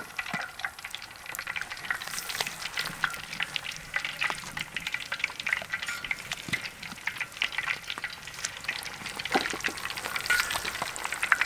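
Batter-coated chicken feet deep-frying in a large wok of hot oil: a steady sizzle with dense, continuous crackling.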